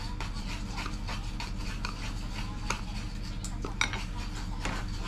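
Wooden chopsticks tapping and scraping against a ceramic rice bowl and a plastic food container, a string of light clicks while pickled greens are picked up and laid on rice.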